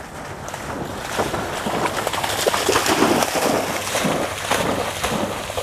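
A Chesapeake Bay Retriever bounding through shallow marsh water on a retrieve: a rapid, irregular run of splashes that grows louder over the first couple of seconds.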